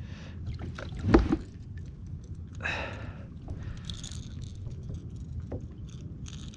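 Small clicks and rustles as a landing net is handled and a topwater popper lure is picked free of its mesh, with water moving against a kayak hull. There is a brief louder thump about a second in.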